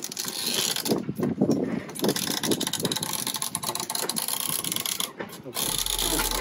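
Mast winch cranked with a winch handle to haul in a halyard, its pawls clicking rapidly, with wind on the microphone. Music comes in near the end.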